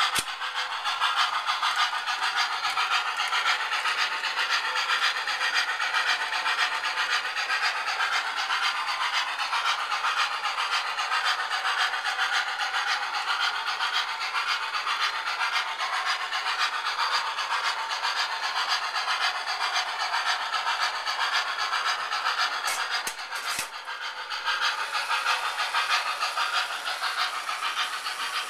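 O-gauge model steam locomotive and its train of flat cars running along three-rail track: a steady running noise of wheels and motor, briefly quieter about three-quarters of the way through.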